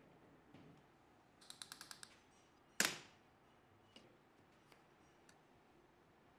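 A quick run of about seven small sharp clicks, then about a second later one much louder sharp snap that dies away quickly, followed by a few faint ticks.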